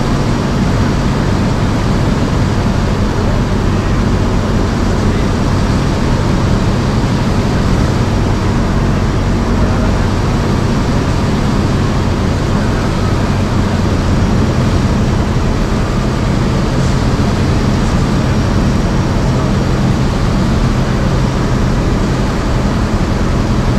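Single-engine piston airplane's engine and propeller running steadily at a constant drone.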